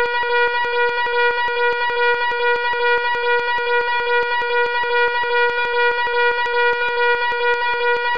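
Fire alarm sounding continuously: a loud, buzzing horn-like tone that pulses rapidly and evenly without a break.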